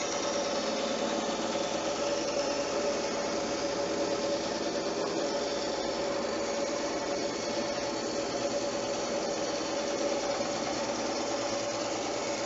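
A handheld electric power tool running steadily while working wood, with a fast, even rattle and a steady hum.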